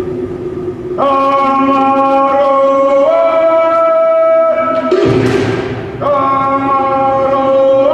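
Cook Islands Polynesian war chant: voices hold long sung notes, the first stepping up in pitch partway through. A short, loud, noisy burst cuts in about five seconds in, between the two held notes.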